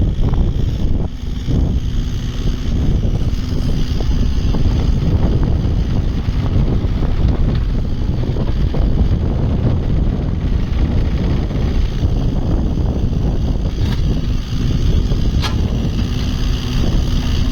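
The diesel engine of a 2010 Yanmar Vio25-3 mini excavator running steadily.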